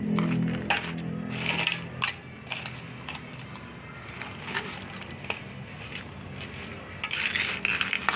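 Cooked cockle shells and crab shell clicking and cracking as hands pick through them on a metal tray, in scattered short sharp clicks. A low steady hum sits under the first two seconds.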